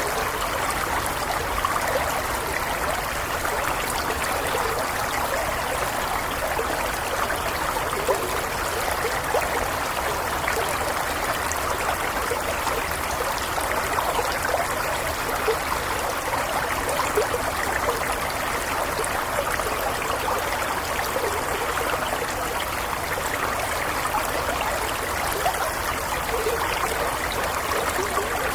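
Small stream flowing steadily over stones, a continuous babble and trickle of water.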